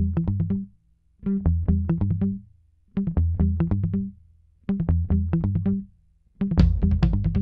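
Background music: a short phrase of plucked synth and bass notes repeated with brief pauses between, then a full beat with drums comes in near the end.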